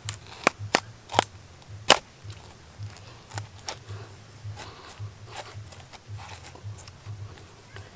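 Serrated knife blade cutting a notch into the fleshy base of a papaya stem, giving sharp crisp clicks and snaps. The loudest come in the first two seconds, then fainter ones follow.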